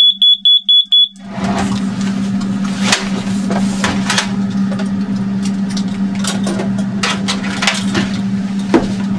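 Airbus A320 cockpit evacuation alarm, set off by the evacuation command: a rapid, high-pitched beeping that stops about a second in. After it comes a steady low cockpit hum with scattered sharp clicks.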